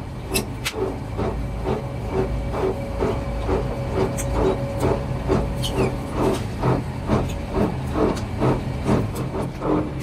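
Two-roll rubber mill running as rubber compound is worked between its steel rollers: a steady low machine hum with an even rhythmic beat of about two to three pulses a second, and a few sharp clicks.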